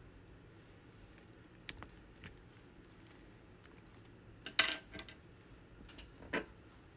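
Small hard craft items clicking and clinking as they are handled: a few scattered light taps, the loudest clatter about four and a half seconds in, and one more click near the end.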